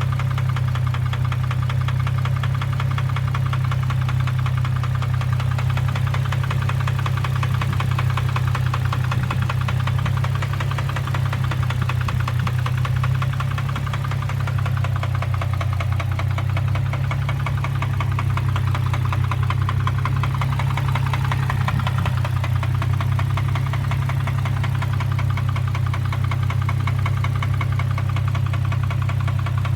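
2003 Infiniti G35's 3.5-litre VQ35DE V6 running with a loud, rapid, steady knocking from inside the engine, which the owner suspects may be rod knock from a spun bearing.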